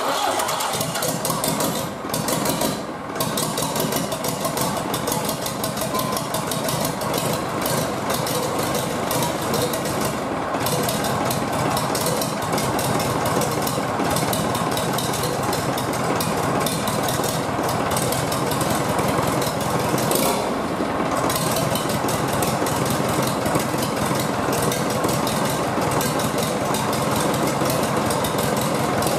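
Nuffield four-cylinder diesel engine on a test stand, starting for the first time after its rebuild. It catches at once and then runs steadily, with a couple of brief dips in the first few seconds. The rocker cover is off, so the valvegear is open.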